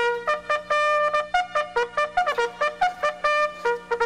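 Trumpet playing a military bugle call: quick notes jumping among a few pitches of one chord, with one longer held note near the end.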